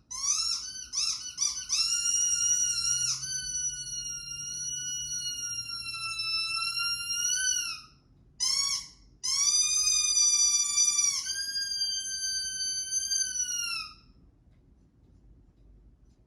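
High-pitched whining squeal of a head-tilt dog-sound video played through a TV: it opens with a quick run of short rising chirps, then goes into long held squeals that sag in pitch at their ends. There is a break about eight seconds in with two short blips, and the squealing stops about two seconds before the end.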